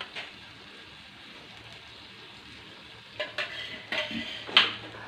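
Spice masala sizzling softly in a cooking pan, then from about three seconds in a metal spoon scraping and knocking against the pan in several short strokes as curd is added to the masala and stirred in.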